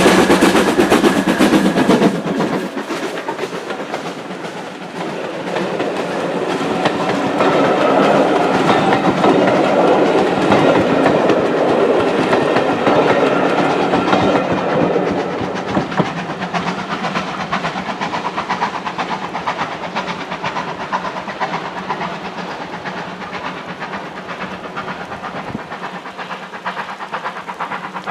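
Rail vehicle running on the track: a loud, continuous clatter of wheels on rail, swelling about a third of the way in and easing off toward the end.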